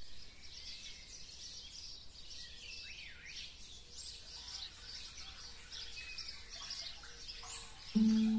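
Small birds chirping and twittering, with a few quick falling whistles. Near the end a single electronic keyboard note starts, loud and held.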